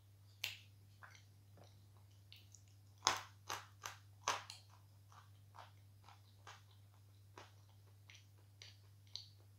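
A piece of lump chalk being chewed and crunched in the mouth. Short, sharp crunches come singly, with a loud cluster of four from about three to four and a half seconds in, then softer ones every half second or so.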